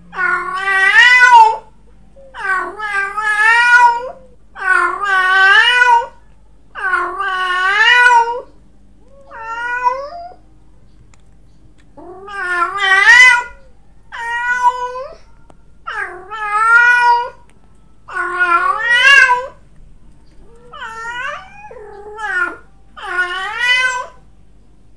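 Cat yowling during mating: about a dozen long, wavering calls, one every couple of seconds, with a short pause about halfway through.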